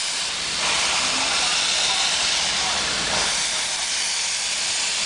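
Santa Fe 3751, a 4-8-4 steam locomotive, pulling away slowly with a steady loud hiss of escaping steam that grows a little stronger under a second in.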